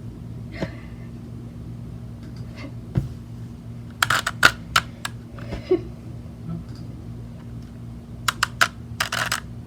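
Rubik's cube being turned by hand: two short runs of quick plastic clicks as its layers are twisted, over a steady low hum.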